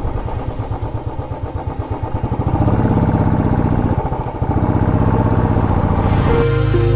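Single-cylinder engine of a Royal Enfield Classic 500 motorcycle running under way with a rapid firing pulse. It gets louder about two and a half seconds in, drops briefly near four and a half seconds, then picks up again. Music comes back in near the end.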